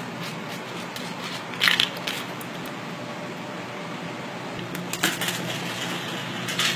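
Plastic bubble wrap crackling and crinkling under a small puppy's paws and body as it plays, with a few louder pops about two seconds and five seconds in and again near the end.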